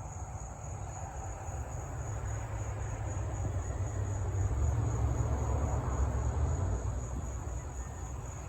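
Summer insect chorus giving a steady high-pitched drone, under a low rumble that swells through the middle and eases off near the end.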